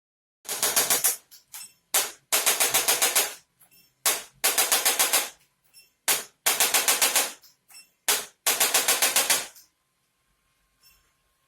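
Chiropractic adjusting instrument firing five bursts of rapid clicks, about nine a second and lasting about a second each, every burst preceded by a single click. The clicking stops near the end.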